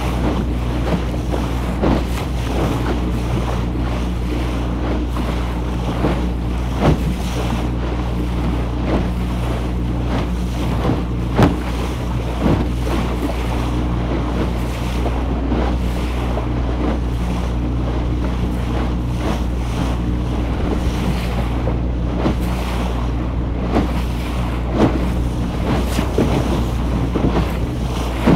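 A motorboat's engine hums steadily at cruising speed under rushing water, as the hull cuts through choppy waves with occasional sharp splashes. Wind buffets the microphone.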